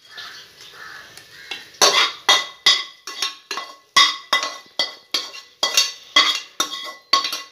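A spatula scraping and knocking sautéed onion and chilli out of a nonstick kadai into a steel pot of batter. A softer scraping comes first, then from about two seconds in a steady run of sharp metal knocks, about three a second, each with a brief ringing tone.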